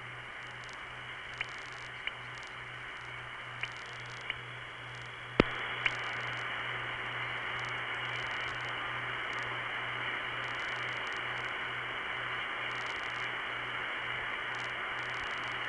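Telephone line hiss with a steady low hum, and faint ticks in pairs, the soft marks of each dialed digit beginning and ending, reflected back over a satellite circuit. About five seconds in, a sharp click and a second click, after which the line hiss gets louder as the circuit switches through.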